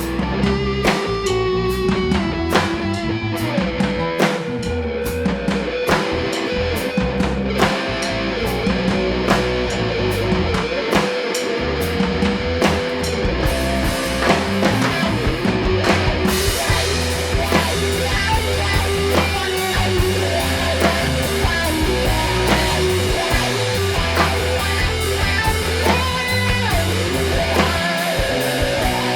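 Rock trio playing an instrumental passage: electric guitar holding and bending notes over bass guitar and a drum kit. About halfway through the cymbals come in and the playing gets fuller.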